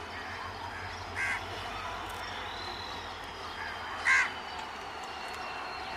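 Crows cawing a few times, the loudest call about four seconds in, over the faint low rumble of an approaching train.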